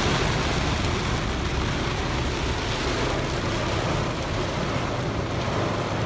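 Heavy rain falling steadily on a car's roof and windows, heard from inside the cabin over a low, steady rumble.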